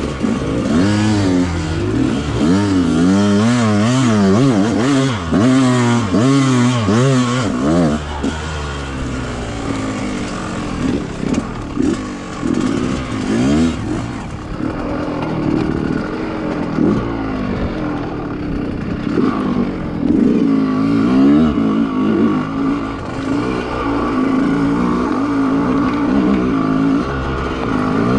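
The 125 cc single-cylinder two-stroke engine of a 2020 Yamaha YZ125X dirt bike running under load on a trail ride, the revs rising and falling over and over. The rise and fall comes about every second in the first several seconds, then the engine settles into steadier revs with smaller swings.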